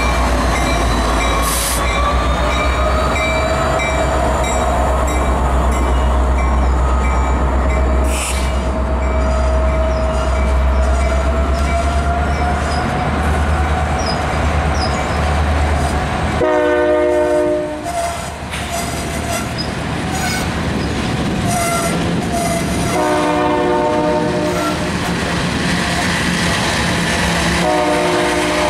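Freight cars of a Canadian National train rolling past: a steady low rumble of wheels on rail with thin gliding wheel squeal. Just past halfway the locomotive's horn sounds several blasts a second or two long.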